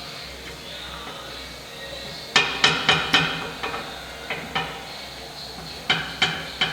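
Steel tire tools striking a big-rig steel wheel rim during a manual tire change: a quiet first two seconds, then a run of sharp, ringing metal strikes in two clusters.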